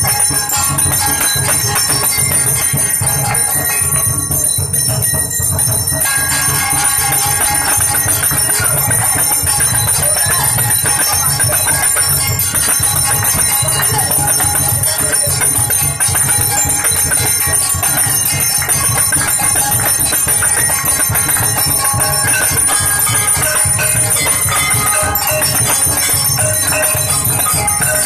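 Hindu temple bells ringing loudly and without a break during the aarti.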